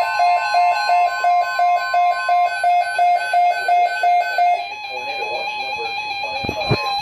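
Electronic emergency alert tones: a rapid beeping at about five beeps a second over a steady tone. The beeping stops about two-thirds in and a steady tone carries on.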